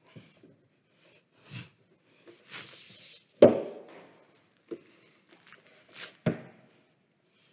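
Scattered handling sounds: soft footsteps and rustling, with two sharper knocks of objects being set down about three and a half and six seconds in.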